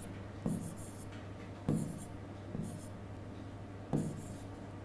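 Marker pen writing on a board: four short strokes about a second apart, each starting with a light tap.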